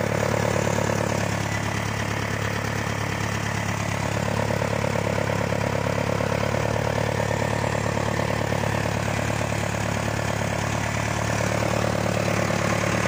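Nuffield Universal 4 tractor's four-cylinder diesel engine running at a steady speed, heard close up from the driver's seat as the tractor drives across a field.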